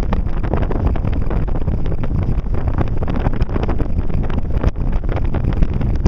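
Near-gale wind (force 7) buffeting the camera microphone: a loud, steady low rumble with rapid, uneven flutter.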